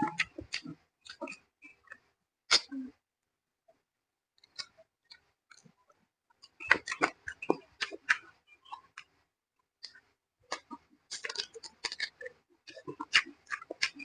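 Close-miked chewing and wet lip-smacking while eating braised pork hock (paksiw na pata). The smacks come in bursts, with a pause of a few seconds about three seconds in.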